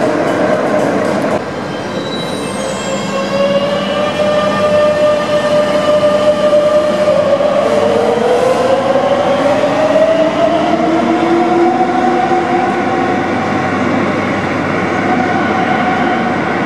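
Madrid Metro electric train running through an underground station, with rail and wheel rumble. About a second and a half in, the sound changes and a multi-toned electric motor whine sets in, gliding up in pitch through the middle as the train gathers speed.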